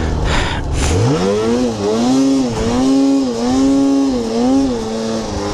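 Snowmobile engine revving up steeply about a second in, then held at high revs, its pitch dipping and climbing again several times as the throttle is worked through deep powder.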